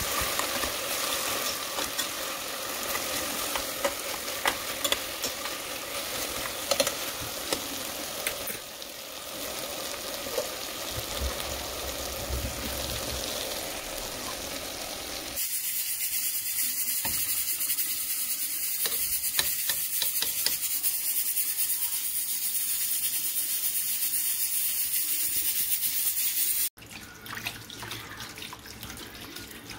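Goat meat in curry sizzling in an aluminium pressure cooker pot while a spatula stirs it, with scraping clicks. A steady, brighter hiss follows for about eleven seconds. Near the end it cuts suddenly to tap water running over the closed pressure cooker in a sink, cooling it before it is opened.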